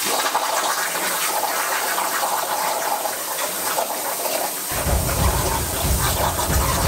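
CNC plasma table torch cutting steel plate: a steady, loud hiss of the plasma arc. A low rumble joins about two-thirds of the way in.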